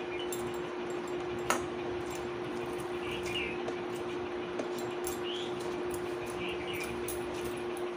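Quiet eating sounds, with small clicks and light clinks against a plate and one sharp tap about one and a half seconds in, over a steady hum. Three short high chirps come midway and near the end.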